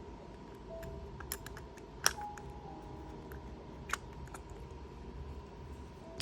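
Scattered sharp clicks and taps, the loudest about two seconds in, with fainter ones around it.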